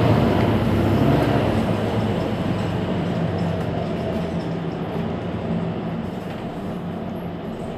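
Mercedes-Benz Citaro C2 Hybrid city bus idling while stationary: a steady low engine hum that slowly gets quieter.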